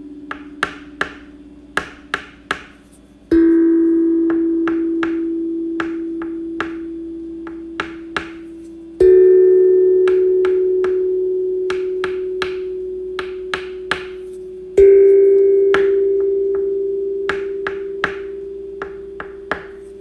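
A ringing bell-like tone struck three times, roughly every six seconds, each one a little higher in pitch and fading slowly. Sharp clicks or taps come at an uneven pace throughout.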